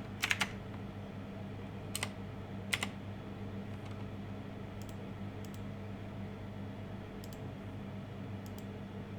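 Computer keyboard keystrokes: a quick run of three near the start and two more at about two and three seconds in, then several lighter paired clicks, over a steady low electrical hum.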